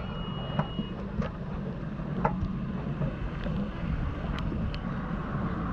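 Steady low rumble of a livestock lorry's engine running, with a few light clicks and knocks scattered through it.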